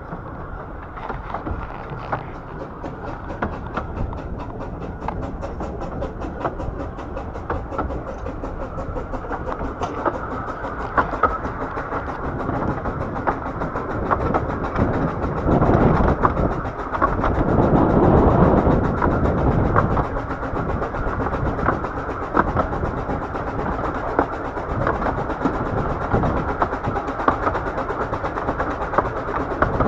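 Bure Valley Railway's 15-inch gauge steam train running along the line, its wheels clicking over the rail joints. The noise grows louder for a few seconds about halfway through.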